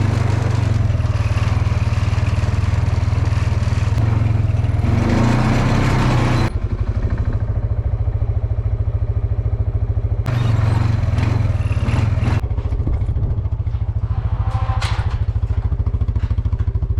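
A small vehicle's engine running close by. It alternates between noisier stretches of driving and a steady, evenly pulsing idle.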